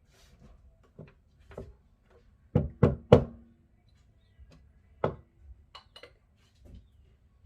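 Hard knocks and taps in a small room: three loud knocks in quick succession about two and a half seconds in, another about two seconds later, with lighter taps scattered around them.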